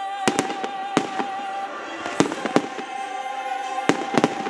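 Aerial fireworks shells bursting: irregular sharp bangs and crackles, several a second at times, over music holding a long note.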